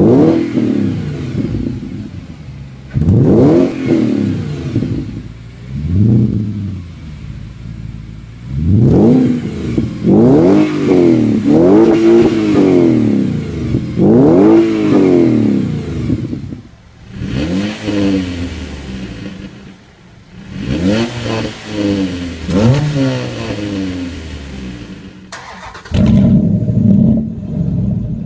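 2005 Audi A6 4.2 V8 with a loud custom exhaust, revved again and again in short blips, the pitch rising sharply and falling back each time. Near the end it settles into a steady, even run.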